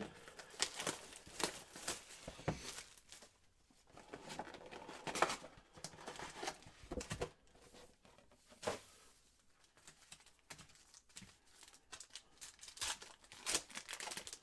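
Packaging of a sealed box of trading cards being torn open and crumpled, an irregular run of crackling rips and rustles.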